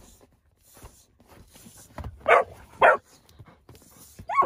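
Puppy giving two short, sharp yips about two seconds in, then starting a whine that slides down in pitch near the end.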